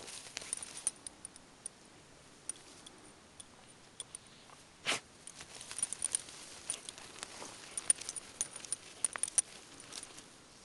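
Irregular small clicks and light metallic jingles, with grass rustling, as an Ibizan hound in a harness and leash noses and paws through the grass hunting mice; one louder short noise about halfway through.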